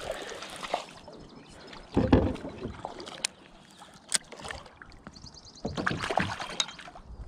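Hooked largemouth bass thrashing and splashing at the water's surface beside a kayak, in two main bursts, about two seconds in and again near the end, with a few sharp clicks in between.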